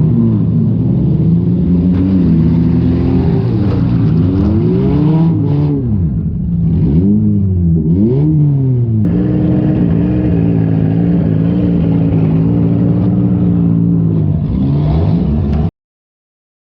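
Demolition derby car's engine heard from on board, revving up and down repeatedly, then running at a steady speed for several seconds before the sound cuts off suddenly near the end.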